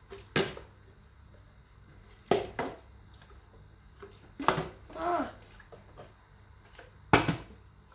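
Small plastic water bottle being flipped and landing on a hard tiled floor: a sharp clack about four times, twice in quick succession near the middle.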